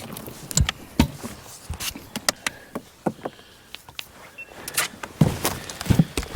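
Irregular knocks, clicks and a few heavier thumps of handling in a small fishing boat as a freshly landed crappie is dealt with.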